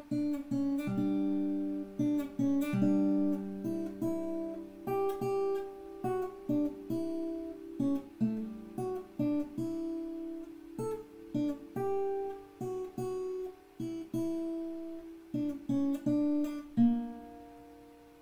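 Acoustic guitar being picked and strummed, a run of single notes and chords several a second, picked up by a computer's built-in microphone. A last chord rings out and fades near the end.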